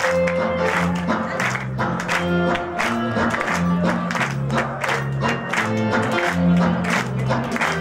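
Music with a steady beat and held bass notes.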